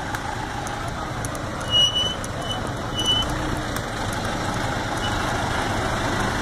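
Heavy diesel engines of a backhoe loader and truck running steadily. Two short high beeps come about a second apart near the middle.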